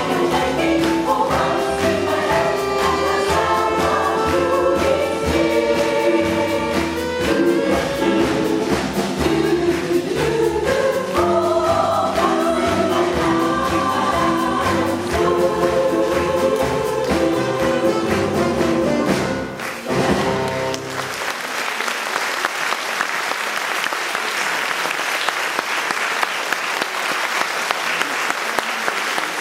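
Jazz vocal chorus singing with a piano, bass and drums combo, driving to the end of a song about twenty seconds in; the audience then applauds.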